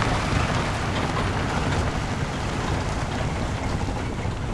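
Open safari jeep on the move: steady engine rumble with wind rushing over the microphone.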